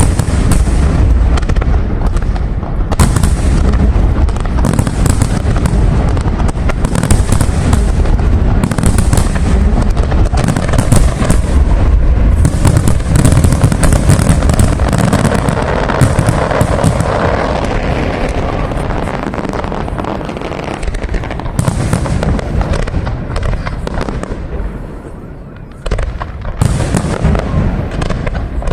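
Fireworks display: a dense, continuous barrage of deep booms from bursting shells mixed with sharp crackling. Near the end the barrage thins briefly, then a sudden loud burst starts it up again.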